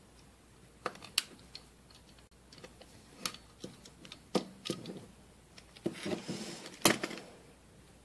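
Utility knife blade cutting through a thin sheet of polymer clay, its tip clicking and tapping against the hard work surface in irregular light taps, with a denser scratchy stretch and the loudest click about seven seconds in.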